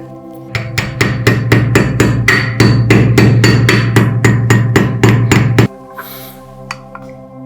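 A hammer striking rapidly and evenly, about five blows a second for some five seconds, then stopping abruptly, over background music.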